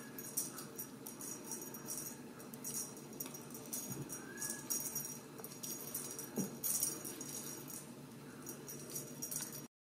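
A cat wand toy rattling in irregular shakes as it is waved, with a couple of soft thumps partway through. The sound cuts off suddenly just before the end.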